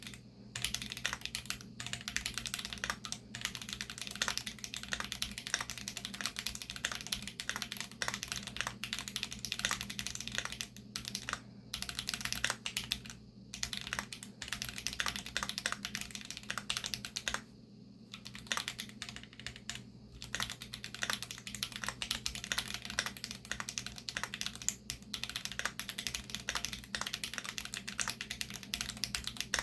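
Continuous fast typing on a Keychron Q2 mechanical keyboard with Holy Panda tactile switches lubed with Krytox 205 and Glorious GPBT (PBT) keycaps: a dense run of keystroke clacks, with short pauses a few times, the longest about halfway through. A steady low hum lies underneath.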